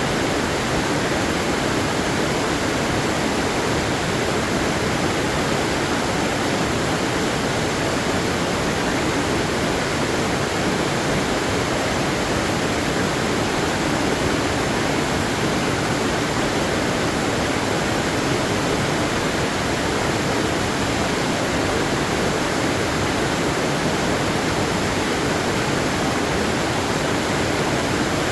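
Waterfall: steady, unbroken rushing of falling water, even in level throughout.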